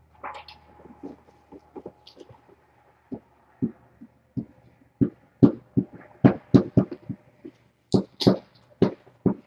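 Soft thumps of a kitten's paws pouncing and scampering on a padded mat during play. They are scattered at first, then come about two to three a second from about halfway through.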